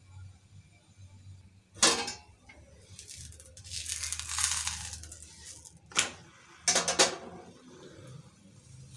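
Hands handling a thin stacked dough sheet on a hot iron tawa. There is a rustling scrape about three to five seconds in as the sheet's edge is lifted off the griddle, and a few sharp clicks against the tawa, one about two seconds in and a couple more around six to seven seconds.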